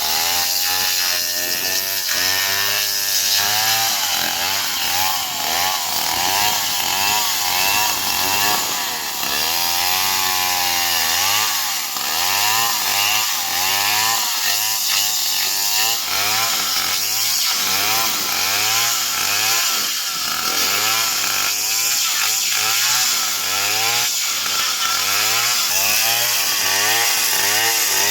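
STIHL chainsaw running steadily and cutting through a palm tree trunk, its pitch sweeping up and down over and over.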